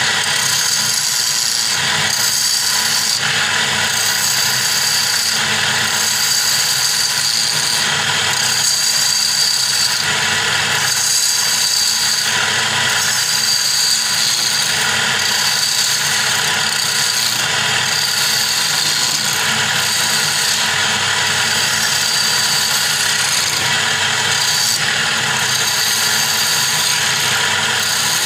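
Wood lathe running while a hand chisel cuts into a spinning wooden blank: a steady scraping hiss of the cut over the lathe's running noise, swelling and easing as the tool is worked.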